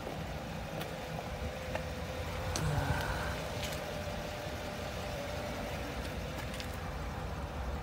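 Low, steady rumble of a motor vehicle's engine running, with a faint steady hum and a few light clicks, a little louder for a moment around three seconds in.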